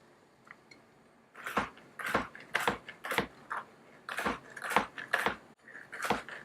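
Knife slicing a cucumber on a chopping board: a steady run of crisp cuts, about two a second, starting about a second and a half in.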